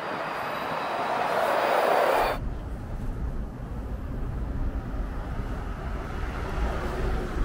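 City street traffic: a vehicle's hiss swells and then cuts off suddenly a little over two seconds in, leaving a low rumble.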